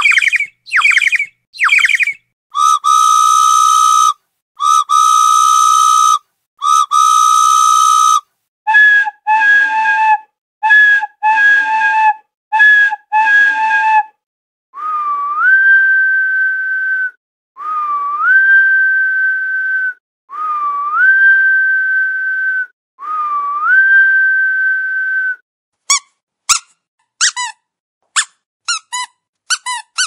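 A sequence of whistle sound effects. It opens with three short falling chirps, then three long steady whistles and a run of short whistles. Four whistles follow, each sliding up in pitch, and a flurry of quick warbling chirps comes near the end.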